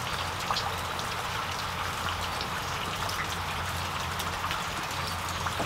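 Steady rain falling outdoors, an even patter of drops, with a steady low hum underneath.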